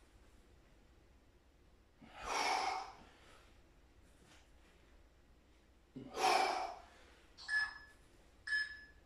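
A man breathing out hard through the mouth as he works through ab roll-ups: two long exhalations about two and six seconds in, then two shorter, quicker breaths near the end.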